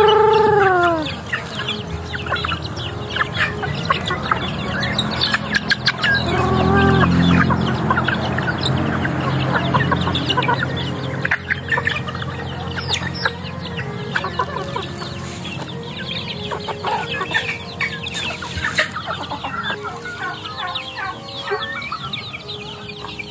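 A flock of chickens, hens and half-grown chicks, clucking and calling as they crowd around to be hand-fed. Short bent calls come at the start and again about seven seconds in, over many short clicks of pecking.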